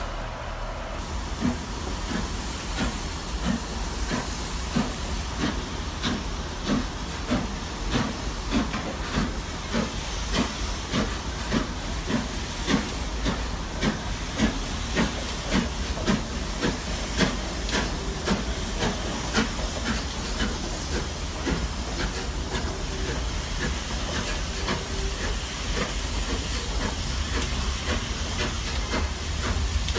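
Steam locomotive 46233 Duchess of Sutherland, an LMS Princess Coronation class Pacific, working at low speed. A steady chuff of exhaust beats, about one and a half a second, runs over hissing steam. In the last third the beats blend into a steadier hiss.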